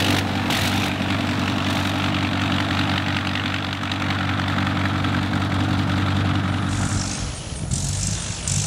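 Sopwith Snipe's engine running at a steady low speed as the biplane taxis on grass. About seven seconds in, the even note breaks up into a rougher, uneven sound with a hiss.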